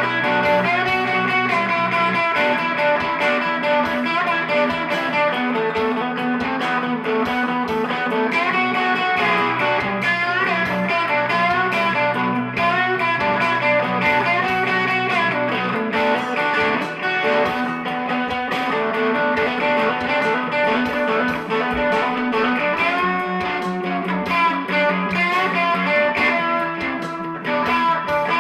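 Background music: an electric guitar instrumental with a steady low bass line.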